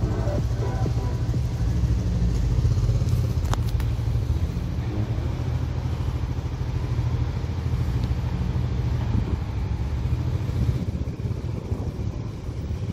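Idling engines of a Mercedes-Benz SL AMG and a motorcycle: a steady deep rumble that eases about nine seconds in.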